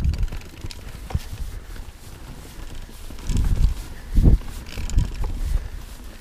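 Mountain bike riding down a rocky trail: irregular thuds and knocks as the wheels strike rocks, the heaviest hits a little past halfway. A low rumble of wind on the microphone runs underneath.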